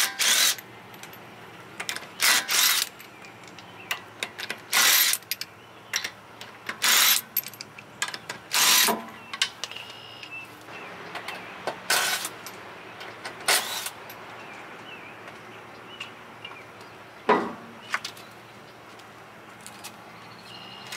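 Cordless impact wrench loosening and spinning off a car's wheel lug nuts in about ten short bursts.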